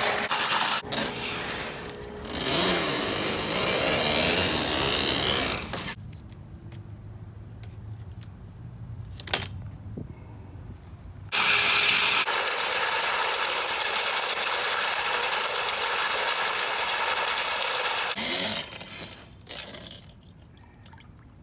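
Motorized sewer drain snake running in two long spells, stopping for a few seconds in between, while it works a mainline stoppage; a sharp click falls in the pause.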